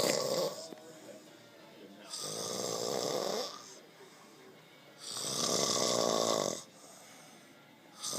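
A man snoring in his sleep: rasping, buzzing snores about every three seconds, each lasting about a second and a half, with quiet gaps between. The end of one snore opens the stretch, two full snores follow, and another begins near the end.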